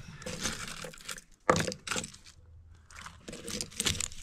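Costume jewelry being sorted by hand in a wooden jewelry box: metal beads, chains and earrings clicking and rattling against each other and the box, in several short clattering moments.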